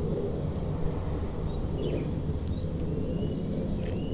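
Outdoor background noise: a steady low rumble with a thin, steady high-pitched tone over it and a few faint ticks.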